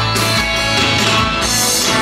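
Loud rock-style music with guitar.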